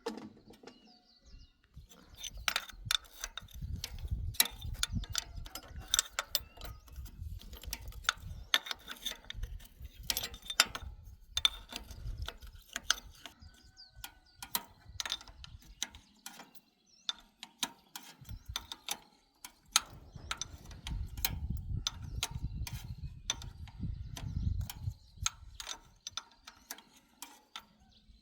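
Hand tools and metal parts of a plow being worked on, with many irregular sharp metallic clicks and clanks and stretches of low rumbling handling noise.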